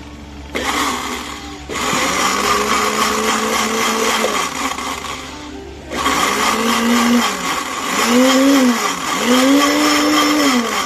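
A Cassius blender's 300 W motor running with water churning in its glass jug: it starts about half a second in, steps up to a louder speed a second later, stops briefly near the middle, then runs again with its hum rising and falling in a few short surges.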